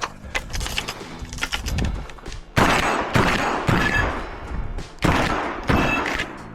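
Shotgun fired in a fast string during a practical shooting stage: lighter reports in the first couple of seconds, then several loud blasts with echoing tails in the second half.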